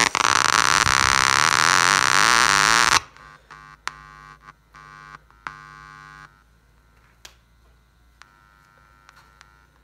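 Loudspeaker on a home-made satellite-receiver amplifier giving out a loud hiss and hum that cuts off suddenly about three seconds in. After that come several short, quieter buzzes of steady pitch and a few sharp clicks while the aux cable's plug is handled.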